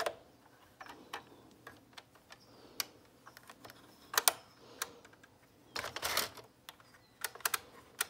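Scattered light plastic clicks and taps from a circular knitting machine being handled while it is cast on, as yarn is worked through its yarn guide and needles, with a short rustle about six seconds in.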